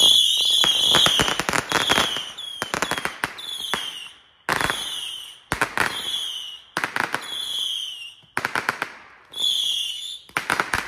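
A 100-shot Saturn missile battery firing: a rapid stream of small whistling rockets, each a short whistle falling slightly in pitch, among many sharp cracks and pops, coming in bursts with brief lulls between them.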